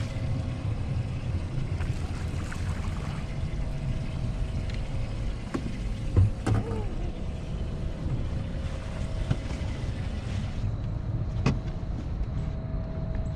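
Steady low rumble of wind and boat noise with a faint steady hum throughout. About six seconds in comes a short splash and thump as a small bass is lifted out of the water, and a sharp click near the end.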